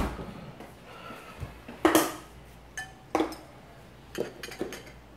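A metal spoon clinking against a ceramic soup bowl and dishes on a table: a few separate sharp clinks, some with a short ring.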